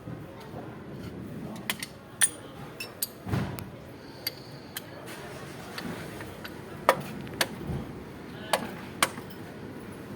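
Hand tools clinking and tapping against metal car parts during repair work: a dozen or so irregular sharp clicks and clinks over a low background rumble.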